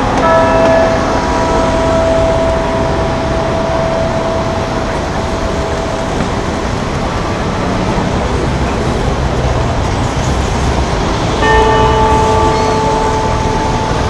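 Wako clock-tower bell chiming: a stroke near the start rings on and fades over several seconds, and a fresh, louder stroke sounds about eleven and a half seconds in. Steady street traffic runs underneath.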